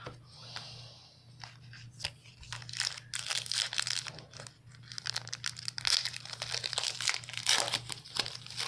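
Foil trading-card pack wrappers crinkling and tearing as packs are opened and handled, a dense run of sharp crackles that starts faintly and grows busier from about two seconds in.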